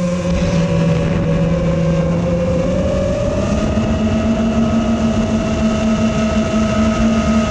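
Brushless motors and propellers of a TBS Source One FPV quadcopter whining in flight over a rush of air noise. The pitch holds steady and steps up slightly about three seconds in.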